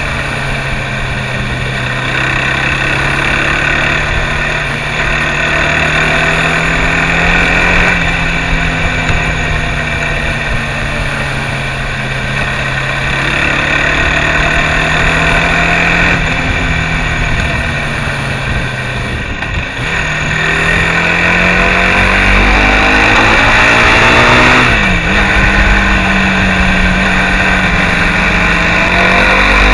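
Mondial SMX enduro motorcycle engine running at moderate road speed, holding a fairly steady pitch. About two-thirds through the throttle is eased off, then the engine pulls up with a rising pitch, drops suddenly at a gear change and climbs again near the end.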